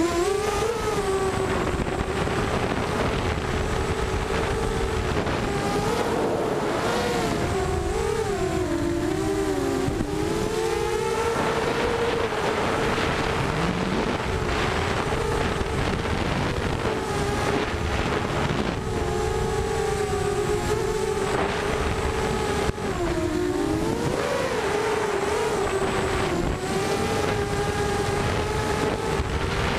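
Lumenier QAV250 racing quadcopter's four Cobra 2204 brushless motors spinning 5x4.5 bullnose props on a 4S battery, heard from the onboard camera. The whine holds a steady pitch over a rush of air, and twice it dips and swoops as the throttle changes.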